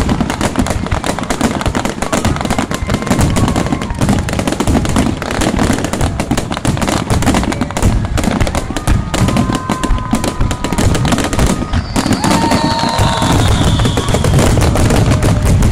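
A starmine fireworks finale: a dense, continuous barrage of shell bursts booming and crackling in rapid succession, which stops abruptly at the end.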